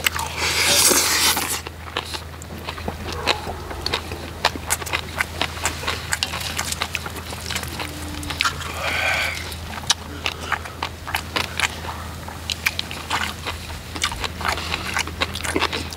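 Close-up eating sounds of bibimbap: a loud slurping intake of a spoonful at the start, then wet chewing and many sharp mouth clicks, with spoons scraping the iron cauldron lid the rice is served on. A steady low hum runs underneath.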